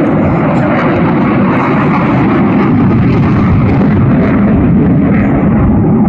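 Aircraft engine roar as a plane flies past, loud and steady.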